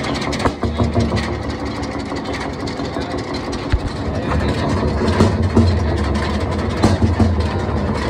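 The crude oil engine of a 1916 Jelbart No. 12 tractor running steadily: a loud, low hum that swells about halfway through, with a few scattered knocks.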